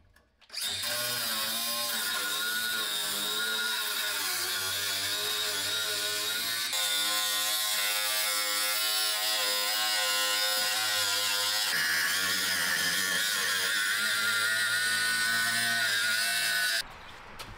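Cordless angle grinder with a cut-off wheel running steadily as it cuts through the rusted steel floor pan of a Triumph TR3, a high whine from its motor and disc. The tone shifts abruptly twice, about 7 and 12 seconds in, and the grinder stops about a second before the end.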